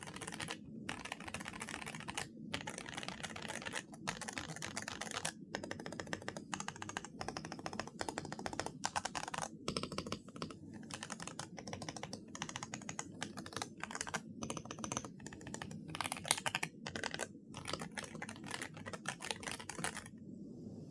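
Fast typing on an Aula F108 Pro gasket-mounted mechanical keyboard with Reaper linear switches, a polycarbonate plate and PBT Cherry-profile keycaps: steady runs of key strokes with a few short pauses. The typing stops about a second before the end.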